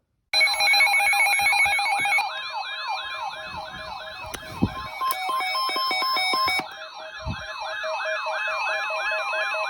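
Electronic weather-alert alarm sounding: a siren-like warble sweeping up and down about three times a second over steady beeping tones. It starts abruptly and signals an incoming weather warning broadcast.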